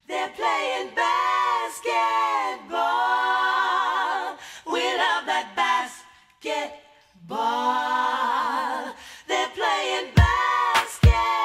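Unaccompanied voices singing a cappella, long held notes with vibrato broken by short pauses; deep bass beats come in near the end as a new song starts.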